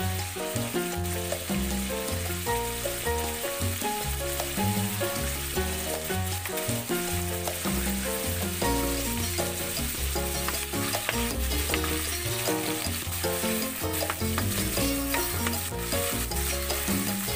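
Pork fat sizzling as it fries in oil in a steel wok, with a wooden spatula stirring and scraping the pieces near the end. Background music with changing notes plays throughout.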